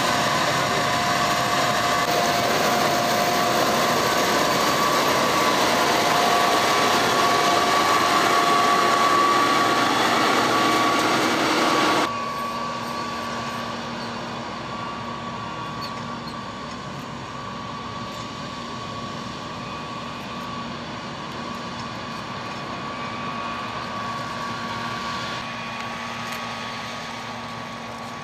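A cotton picker running in the field: a steady, loud mechanical drone with a high whine. About twelve seconds in it cuts abruptly to a quieter steady hum, still with the same whine.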